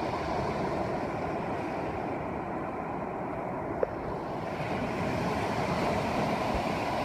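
Steady rushing noise of ocean surf and wind buffeting a phone microphone, with a single brief click about four seconds in.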